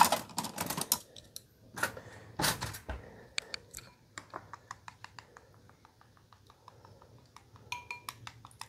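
Louder clattering for about the first three seconds, then wooden chopsticks beating eggs in a ceramic bowl, clicking against the bowl quickly and evenly, about five times a second.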